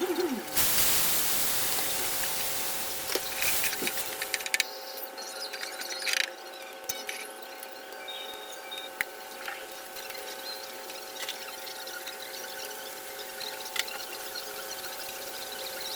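Food sizzling in hot oil in a pan. The sizzle starts suddenly about half a second in, loud at first, and dies down over a few seconds to a softer sizzle. Utensil clicks and a steady hum continue throughout.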